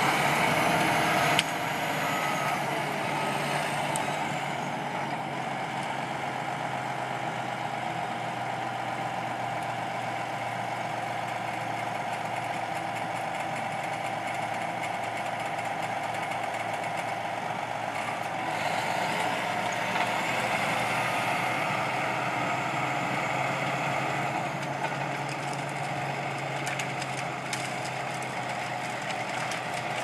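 Caterpillar D8T bulldozer's diesel engine running steadily under load as the dozer pushes trees and brush. The engine swells a little past the middle. Near the end come scattered sharp cracks of wood breaking.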